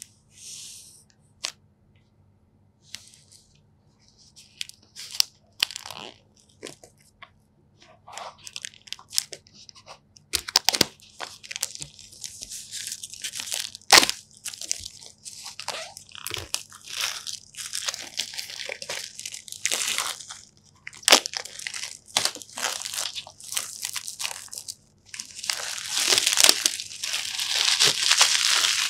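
Plastic shrink-wrap being peeled off a product box and crumpled by hand: crinkling and crackling with sharp snaps. It is sparse at first, becomes dense and continuous, and is loudest near the end as the film is balled up.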